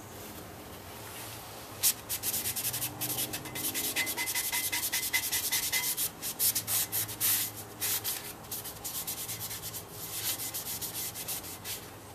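Hand scrubbing with an abrasive on the metal of a brake rotor, cleaning off deposits, in quick back-and-forth scraping strokes that start about two seconds in.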